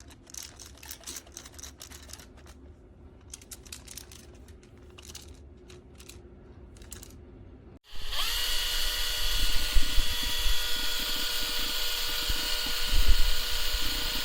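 Light clicks and knocks of a cordless drill being handled. About halfway through, the Bosch GSB 18V-55 cordless hammer drill/driver's motor starts suddenly and runs loud and steady at a constant high pitch.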